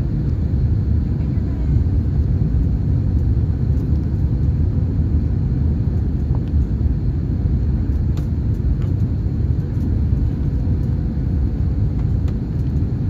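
Steady low rumble inside the cabin of an Airbus A321 on final approach with its flaps extended.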